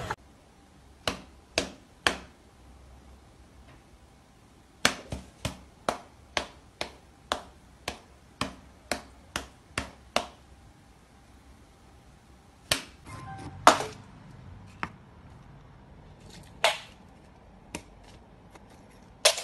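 A series of sharp clicks. There are three near the start, then an even run of about two a second for roughly five seconds, then a few scattered ones toward the end.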